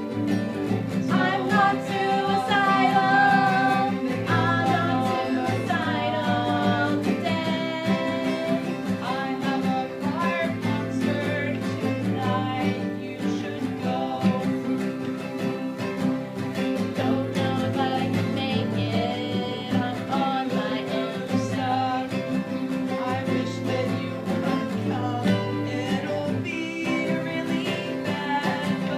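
Acoustic guitar playing a country-style tune, with a voice singing over it in a twang.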